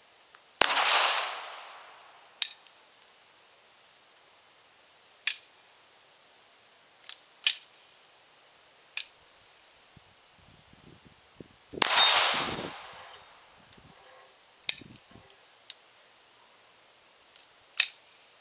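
Chiappa 1911-22 .22 LR pistol firing single shots a few seconds apart, about ten in all. Two of them, about a second in and near the middle, are much louder, with a long fading tail.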